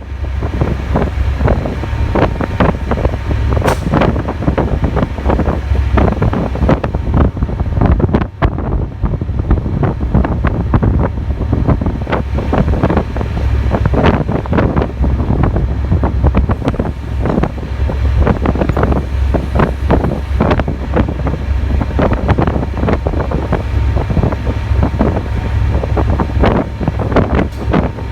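Strong wind buffeting the phone's microphone in constant irregular gusts over a steady low rumble.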